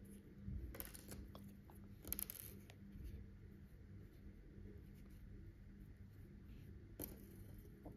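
Near silence with faint handling noises: a few soft scrapes and clicks, about a second in, around two seconds in and near the end, as pins are pushed through stuffed crocheted pieces, over a faint steady low hum.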